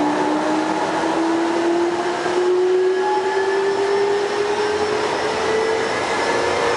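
Taipei Metro Wenhu Line Bombardier rubber-tyred train running, its motor whine rising steadily in pitch as it gathers speed over a loud rushing running noise.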